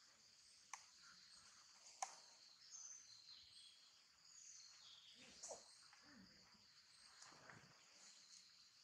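Near silence: faint outdoor ambience with a steady high insect drone, a few short bird chirps and a couple of soft clicks.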